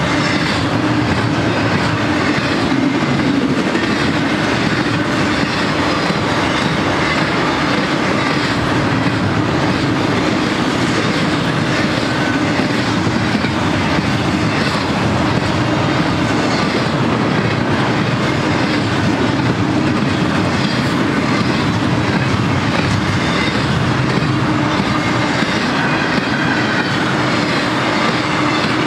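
Intermodal freight train's double-stack container cars and trailer flatcars rolling past close by: a steady wheel-on-rail rumble with the clacking of wheels on the track.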